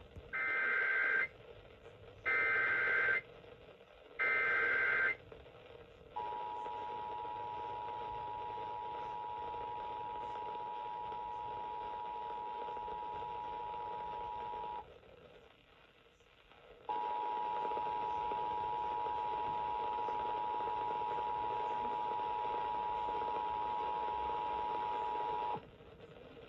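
Emergency Alert System activation received over FM radio: three one-second bursts of the SAME digital header's data tones, about a second apart, encoding a severe thunderstorm warning. Then comes the steady two-tone EAS attention signal, held for about eight and a half seconds, breaking off for about two seconds and sounding again for another eight and a half.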